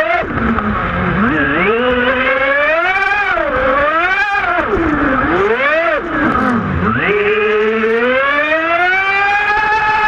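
Radio-controlled boat's motor heard close up from on board, its pitch rising and falling again and again as the throttle is worked, then climbing steadily to a high, held pitch over the last few seconds.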